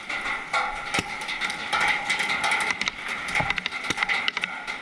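Paintball markers firing: scattered, irregular sharp pops and cracks, some in quick strings, over a steady background hiss.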